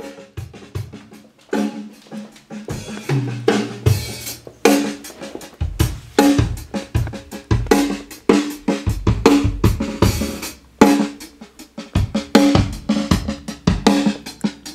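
Acoustic drum kit playing a busy groove of kick drum and snare hits, each sharp strike followed by ringing drum tones.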